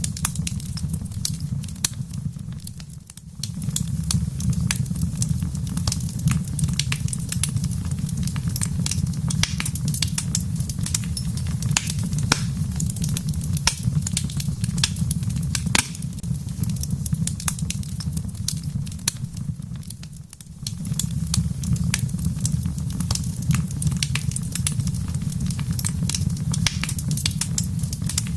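Wood fire crackling in a fireplace: many sharp pops and snaps over a steady low rumble. The rumble drops away briefly twice, about three seconds in and again about twenty seconds in.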